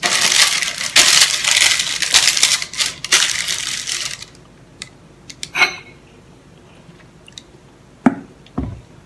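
Baking paper crinkling and rustling as it is pressed by hand into a metal baking tray, a dense crackle lasting about four seconds. After it come a few isolated light knocks.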